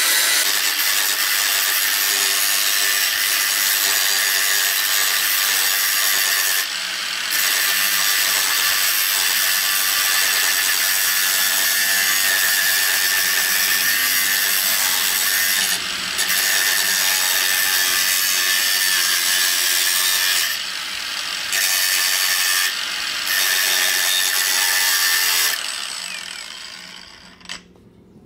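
Angle grinder with a thin cut-off disc cutting through a sheet of steel: a loud, steady grinding screech. It breaks off briefly four times, around 7, 16, 21 and 23 seconds in. About 25 seconds in the grinder stops and winds down, and a couple of light clicks follow.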